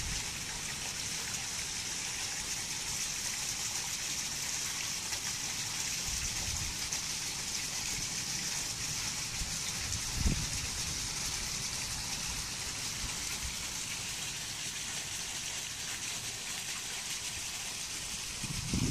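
A steady, even hiss like light rain, with one soft low thump about ten seconds in.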